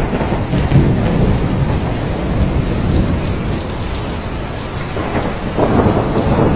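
Thunderstorm: steady rain with a rolling rumble of thunder. The rumble eases in the middle and swells again near the end.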